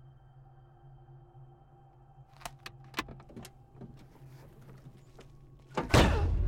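Low steady hum with a few small, sharp handling clicks, then a sudden loud sweeping hit near the end.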